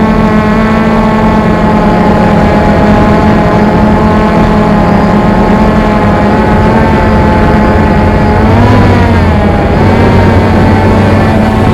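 XK X380 quadcopter's motors and propellers running in a steady hover, a loud even drone whose pitch rises and dips back briefly about two-thirds of the way through.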